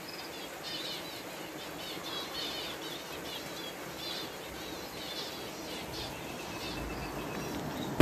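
Small aviary birds chirping over and over, short chirps coming a few times a second, over a steady background noise.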